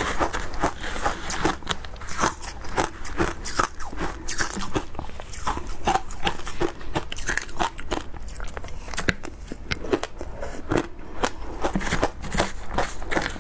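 Shaved ice crunched and chewed close to a lapel microphone: a quick, irregular run of sharp crunches. A spoon scoops ice in a plastic tray between bites.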